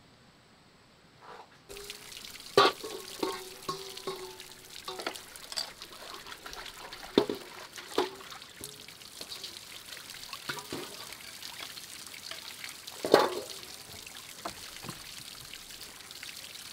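Water running and splashing into a stone sink while a stainless-steel bowl is washed, with several sharp clanks of the metal bowl against the basin and a brief ringing of the bowl early on.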